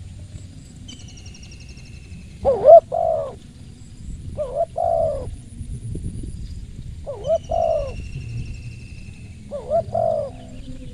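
Spotted dove cooing, four two-part phrases about two seconds apart. Fainter high, falling whistled calls from another bird come between them.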